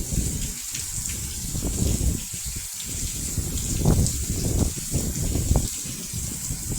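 Heavy tropical rain pouring down: a steady hiss over an uneven low rumble.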